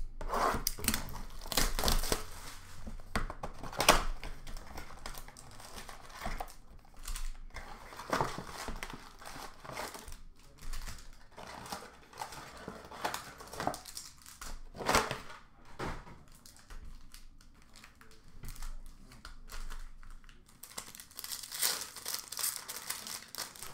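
Hockey card pack wrappers being torn open and crinkled by hand in irregular rustling bursts. The loudest comes about four seconds in.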